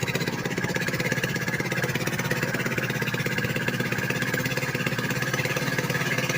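A small engine running steadily at one speed, with a fast, even beat of firing pulses.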